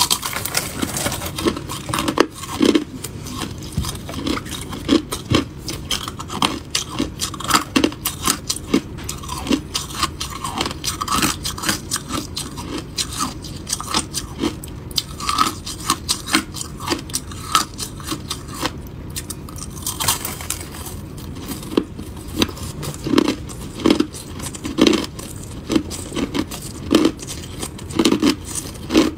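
Crushed ice being bitten and chewed: a dense run of sharp, crisp crunches in quick succession, with heavier crunches in the last few seconds.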